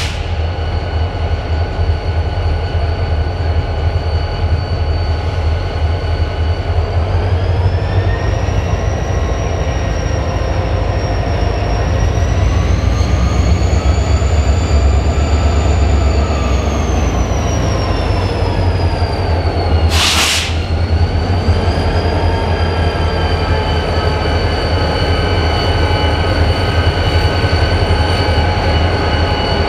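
Two BNSF diesel freight locomotives passing slowly at close range: a steady low engine rumble under a high whine that rises in pitch and then falls back. A brief burst of hiss comes about two-thirds of the way through.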